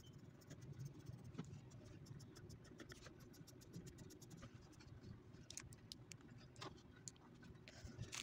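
Faint pencil scratching on paper in short, irregular strokes, shading a drawing.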